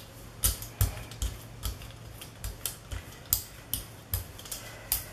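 Paint brayer rolled quickly back and forth over acrylic paint on a gel printing plate, spreading it out. Each stroke gives a sharp click or tap, about two to three a second.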